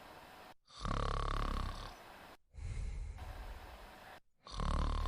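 A sleeping woman snoring: two loud snores, about a second in and again near the end, with a quieter breath between them.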